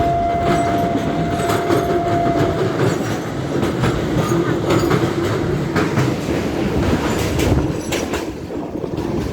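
Hirakhand Express train running on the rails: a steady rumble with the clickety-clack of wheels over rail joints, and a thin, steady wheel squeal for about the first three seconds.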